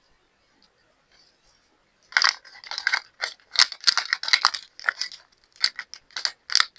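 Hands rummaging through a box of nail supplies, with plastic packaging rustling and small items clicking and rattling. It starts about two seconds in as a quick, dense run of clicks and crinkles.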